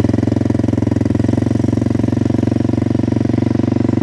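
Quad bike (ATV) engine running at a steady speed while being ridden, with a fast, even beat.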